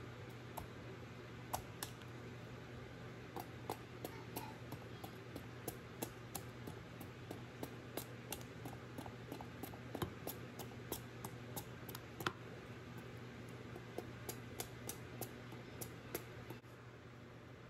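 Knife peeling the hard skin off a kabocha squash on a wooden cutting board: irregular crisp clicks and taps, two or three a second, as the blade shaves off strips. A steady low hum runs underneath.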